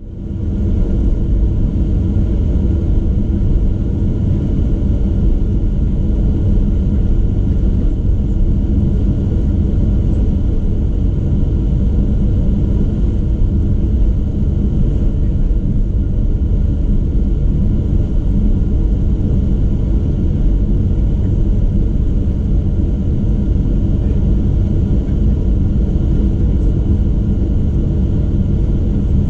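Steady cabin rumble inside a Boeing 737-800 moving on the ground, its CFM56-7B turbofan engines running at low power, with faint steady tones over a deep, even roar. The sound fades in just after the start and holds steady, with no spool-up to takeoff thrust.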